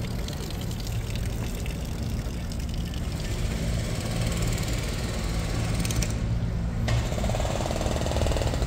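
Street ambience dominated by a steady, low, rattling engine rumble from motor traffic.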